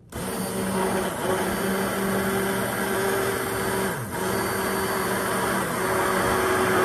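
Immersion blender running steadily, held at the bottom of a jar of egg and oil to emulsify it into mayonnaise; the motor dips briefly about four seconds in.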